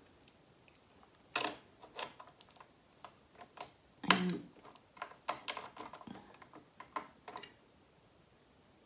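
Metal bobbin case and plastic bobbin-area parts of a Jones mechanical sewing machine clicking and knocking as they are fitted back in and fastened by hand. The clicks are scattered and irregular, with the loudest knock about four seconds in.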